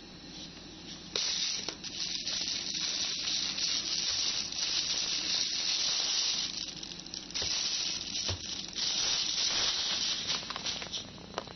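Thin plastic shopping bag rustling and crinkling as a box is pulled out of it. The rustle starts about a second in and goes on unevenly, with small crackles, until just before the end.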